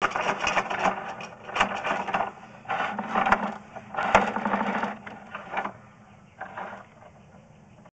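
Sewer inspection camera and its push cable being shoved into a cast-iron drain line in strokes, rattling and scraping in about five bursts over a steady low hum. The bursts stop and it goes quieter near the end, as the camera comes to rest.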